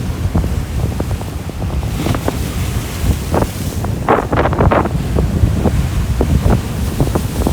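Strong wind buffeting the microphone over rough surf after a typhoon, a heavy rumble with crackling gusts, busiest about four seconds in.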